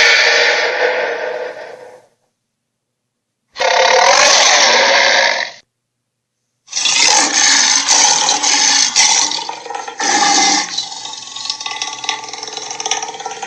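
Film dinosaur roar sound effects of a tyrannosaur: a roar fading out over the first two seconds, then a two-second roar, then a longer run of roars and growls of about seven seconds, each clip separated by dead silence.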